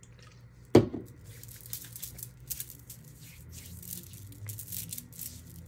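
Florida water being put on from its bottle: a sharp knock about a second in, then a string of short, irregular hissing bursts as the cologne is applied.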